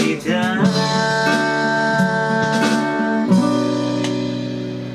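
Music from a Spanish-language song: the sung word "gritar" glides up in the first second, then long held instrumental chords ring on, changing chord once partway through.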